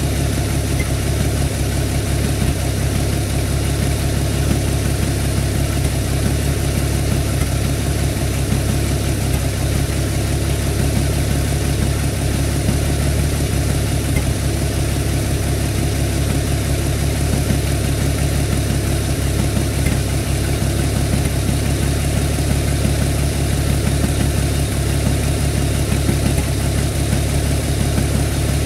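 Engine idling steadily with an even low drone, unchanged throughout.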